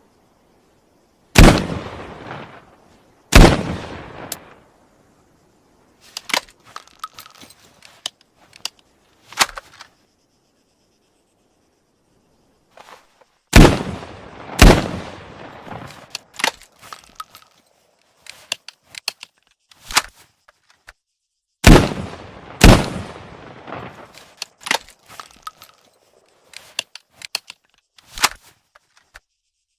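IZh-54 sawed-off double-barrel shotgun fired both barrels in quick succession, three times, each pair of shots about a second or two apart. Between the pairs come bursts of mechanical clicks and clacks as the gun is broken open, reloaded and snapped shut.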